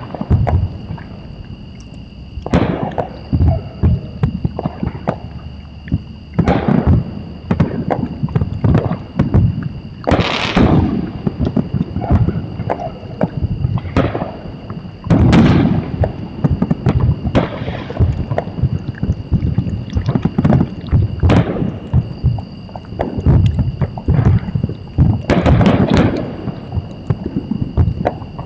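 Fireworks going off one after another: booms and crackling bursts every couple of seconds.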